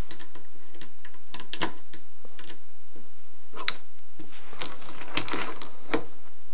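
Irregular light metallic clicks and taps of a hex key turning a small screw into an aluminium track rail, with brief rustles of handling.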